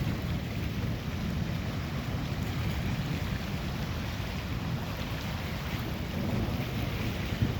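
Steady, gusty low rumble of wind buffeting the microphone during a thunderstorm, with a fainter hiss above it and no distinct claps.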